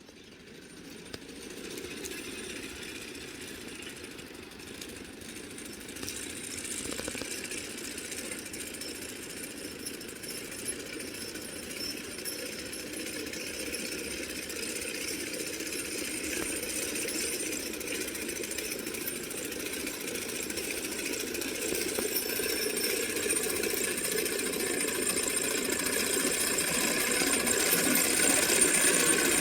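Sickle bar mower's cutter bar running, a fast steady metal clatter of the reciprocating knife that grows steadily louder.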